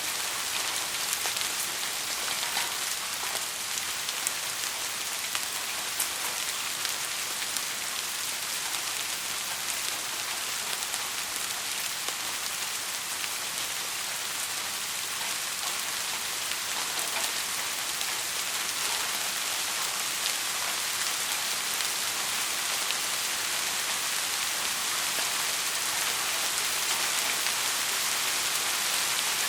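Heavy rain falling steadily: a dense, even hiss of rain on a surface, dotted with many small sharp drop ticks.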